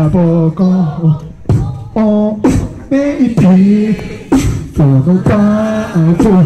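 Amplified solo beatboxing into a handheld microphone: sharp vocal kick and snare hits mixed with held, pitched vocal notes.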